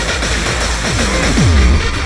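Electronic dance music in a techno style, with heavy bass and repeated downward-sliding low tones.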